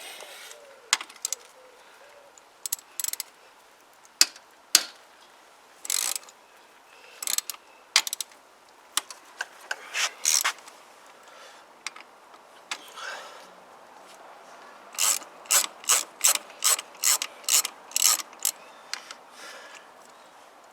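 Socket ratchet wrench clicking as it undoes the front brake caliper bolts. Scattered clicks at first, then a steady run of about two clicks a second near the end.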